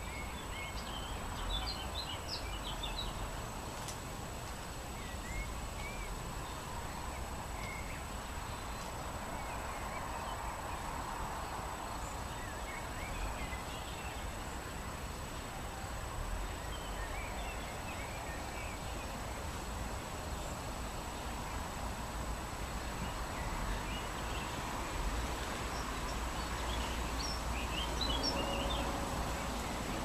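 Wind in tree leaves, rumbling on the microphone, with songbirds chirping now and then, most clustered near the start and near the end.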